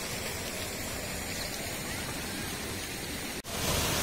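Steady outdoor hiss, then after a brief break about three and a half seconds in, the louder, even rush of water pouring down a stepped cascade fountain.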